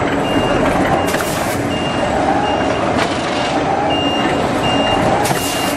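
Egg tray production line machinery running steadily, with a short high electronic beep repeating about every three-quarters of a second. Two brief hissing bursts, about a second in and near the end.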